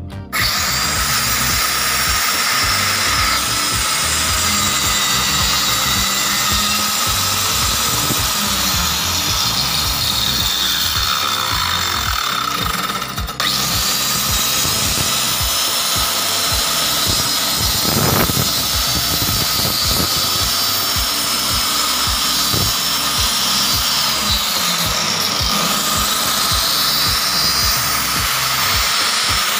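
Handheld electric cutter running with its blade cutting a groove along the plywood edge of a cabinet panel: a steady machine noise with a high whine, which breaks off briefly about 13 seconds in and then resumes.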